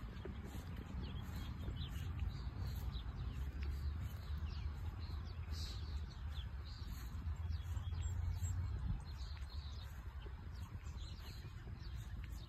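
Wind rumbling on the microphone across an open field, with small birds chirping, many short high chirps scattered throughout.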